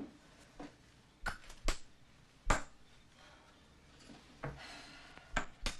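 A handful of short, sharp clicks and knocks of hard objects, with the loudest about two and a half seconds in, and a brief soft rustle shortly before two final clicks near the end.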